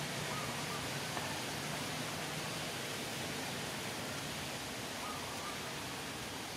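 A steady, even hiss with a few faint short chirps, one about half a second in and one about five seconds in.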